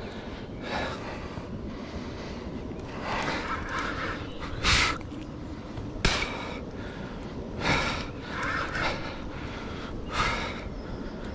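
A man breathing hard, with a heavy gasp or exhalation every second or two, straining as he fights a big catfish on the rod.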